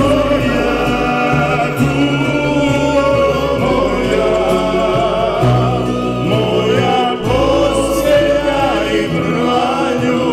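Several voices singing a folk song together, with instrumental accompaniment and a bass line that moves in long held notes.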